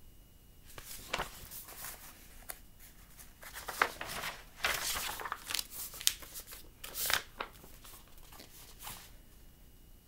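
Pages of a picture book being turned and the book handled: a run of short paper rustles and scrapes, loudest in the middle.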